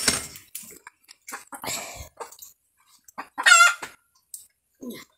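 A chicken gives one short, loud squawk about three and a half seconds in, with light scattered clicks and taps around it.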